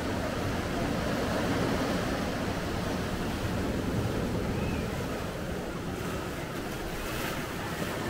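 Sea surf washing onto the shore in a steady rush, with wind buffeting the microphone.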